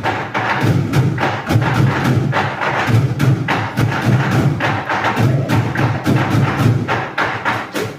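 Bucket drumming by a group: fast, steady rhythm of deep thuds from the bucket bottoms mixed with sharp clacks of sticks on rims and sides.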